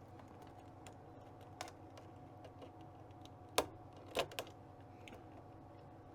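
A few sharp, light clicks and taps, spread out and irregular, from wire connectors being handled and pushed back onto the circuit boards of a Kenwood TS-450S transceiver, over a faint steady hum.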